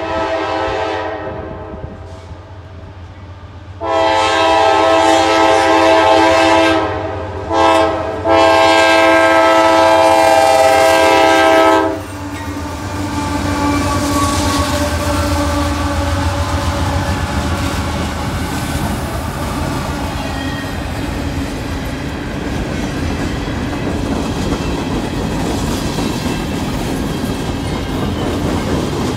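CSX freight train's diesel locomotive horn sounding the grade-crossing pattern as the train approaches: the end of one blast, then a long blast, a short one, and a final long blast that cuts off about twelve seconds in. The lead diesel locomotives then pass with their engines running, followed by a steady rolling clatter of hopper-car wheels on the rails.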